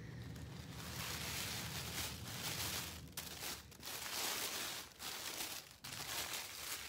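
Tissue paper and folded baby clothes rustling as hands move them, in several bouts with short pauses between.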